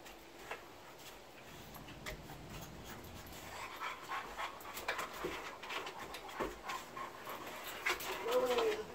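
Dog panting in quick, even breaths, growing louder from about three seconds in, with a short rising-and-falling voice sound near the end.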